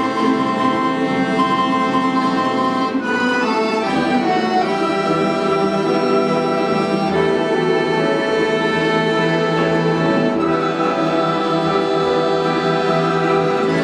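An orchestra of Russian folk instruments plays a melodic passage in full, sustained chords, moving to a new chord about three to four seconds in.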